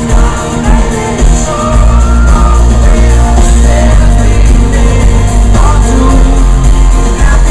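Live pop-rock band playing at full volume, with a male lead vocal singing over a heavy, steady bass and drums.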